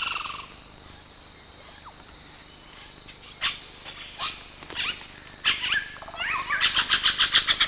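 Yellow-rumped cacique calling at its nest colony. A falling call comes right at the start, then scattered sharp notes and clicks, building near the end into a rapid rattle of about eight clicks a second. A steady high insect buzz runs behind.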